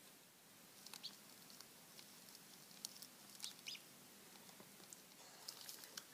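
Faint, high, short peeps and ticks, spaced irregularly, from a duckling hatching out of its egg in a bed of straw.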